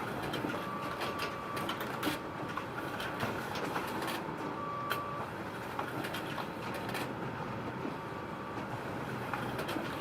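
Photocopier running: a steady mechanical whir with frequent light clicks, and a faint high tone that comes and goes twice.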